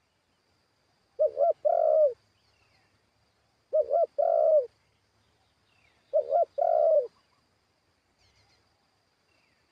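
A spotted dove cooing: three phrases about two and a half seconds apart, each two quick notes followed by one longer, falling coo.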